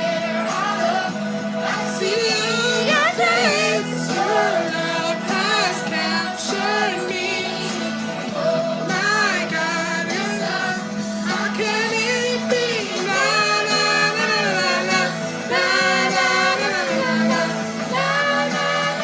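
Music with singing: a vocal song over a steady accompaniment, in the style of a Christian children's worship song.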